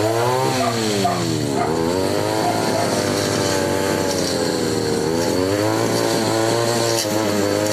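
Brush cutter engine running with a re-ground grass-cutting blade, its speed falling and rising again twice.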